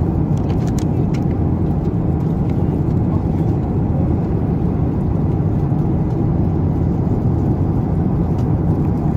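Steady low roar of cabin noise aboard a Boeing 787 airliner in flight: engine and airflow noise heard from a passenger seat.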